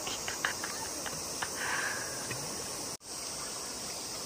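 Shallow river running steadily over stones, with a few faint small splashes from wading feet. The sound drops out briefly about three seconds in.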